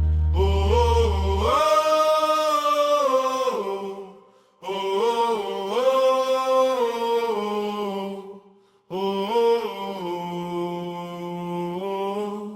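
Closing vocal phrases of a worship song: three long held sung phrases with short breaths between them. A low sustained bass note under the first phrase drops out about a second and a half in, leaving the voices nearly unaccompanied, and the last phrase dies away at the end.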